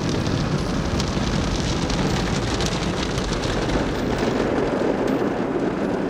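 Automatic car wash running over the car: water and foam spraying and cloth brushes sweeping across the windshield and body, heard from inside the car as a steady rush of water noise.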